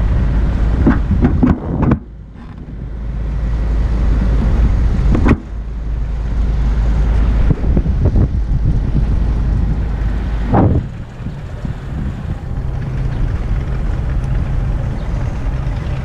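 Wind buffeting the camera's microphone: a loud, low rumble that rises and falls in gusts, with a couple of brief knocks.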